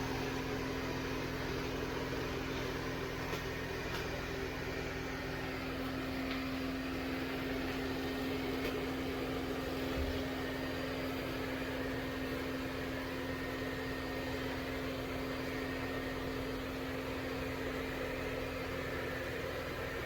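ECOVACS DEEBOT X9 Pro Omni robot vacuum running steadily: an even whirring hum with one constant mid-pitched tone. A soft low knock comes about halfway through.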